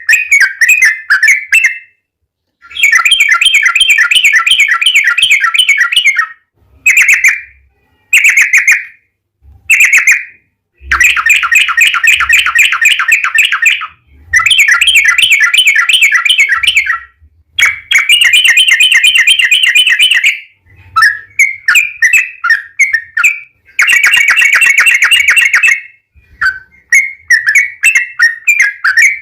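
Yellow-vented bulbul (trucukan) singing: long, fast rolling chatters of about two to three seconds each, alternating with shorter bursts of chirps, loud throughout.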